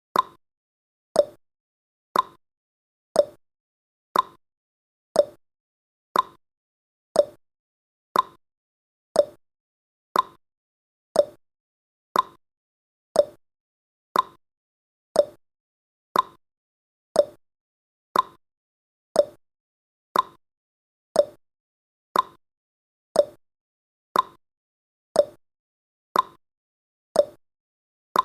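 Countdown timer's clock-style ticking sound effect: a crisp tick once a second, alternating higher and lower like a tick-tock.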